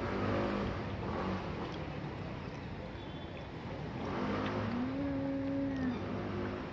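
Cats yowling and growling at each other in a fight standoff: low, drawn-out, wavering yowls, with one long held yowl from a little past the middle to near the end.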